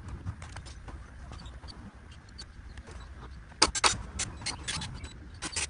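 Sharp knocks and clicks of lumber and tools being handled on the ground, bunched together from about three and a half seconds in, over a steady low rumble.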